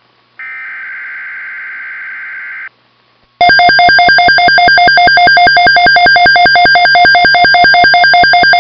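Weather radio alert tones: a buzzy burst of data-like tones lasting about two seconds, then after a short gap a loud, rapidly pulsing electronic alarm tone that starts about three and a half seconds in.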